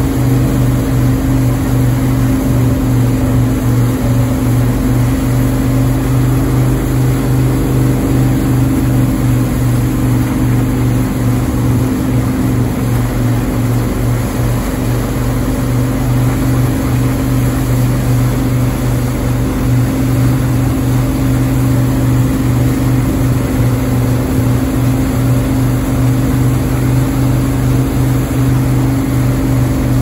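Wake boat's inboard engine running steadily at towing speed, a constant low drone over the churn of water from its wake.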